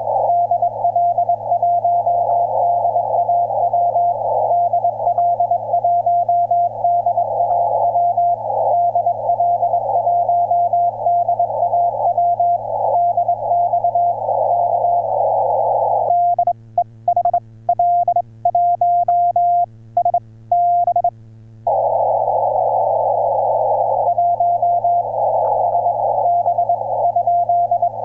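Morse code (CW) on an HF ham radio transceiver: a single steady tone keyed in dots and dashes over band hiss. About two-thirds of the way through, the hiss drops out and the dots and dashes come through clean. Then a couple of seconds of hiss alone, before the keying resumes.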